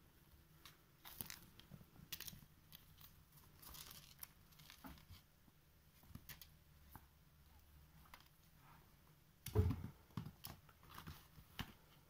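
Kittens playing with bootlaces: faint, scattered scratching, rustling and clicking of claws and laces against the boots and the floor, with one louder thump about nine and a half seconds in.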